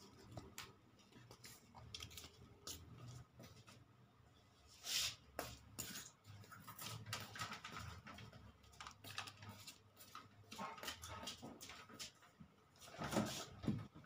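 Quiet room with scattered faint clicks and rustles and two louder short noises, about five seconds in and near the end. The refrigerator compressor is not running, and its faulty overload relay does not click.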